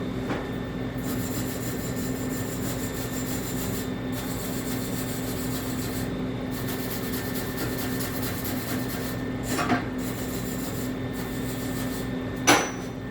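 Lincoln MIG welder laying short weld runs: a crackling hiss that starts and stops several times over the machine's steady hum. Two short knocks come near the end.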